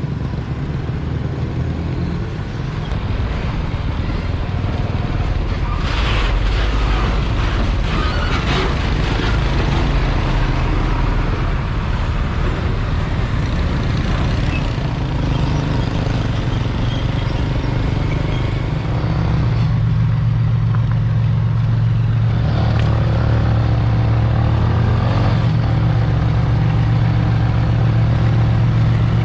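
Motor vehicle running on the road: a steady engine hum under road noise, the low hum growing stronger about two-thirds of the way through.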